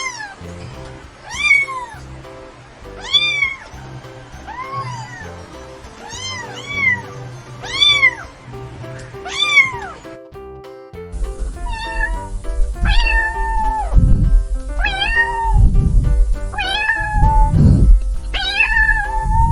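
Kittens meowing again and again over background music: first a run of rising-and-falling meows about every one and a half seconds, then, after a short break about ten seconds in, louder music with a strong beat and longer, drawn-out meows.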